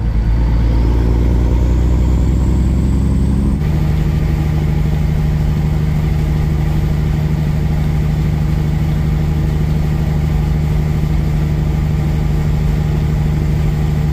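Semi truck's diesel engine running under way, heard from the cab. Its pitch creeps up over the first few seconds, changes abruptly about three and a half seconds in, then holds a steady drone.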